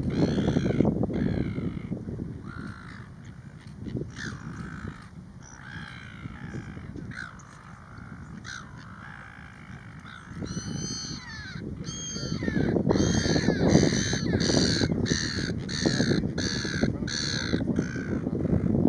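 Gulls giving harsh, repeated calls, sparse at first and then coming closely one after another, several a second, in the second half. A low rushing noise runs underneath.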